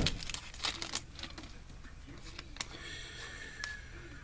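A foil trading-card pack wrapper crinkling and cards being handled, with a knock at the start and crackling for about a second. It then goes quieter, with a few soft clicks.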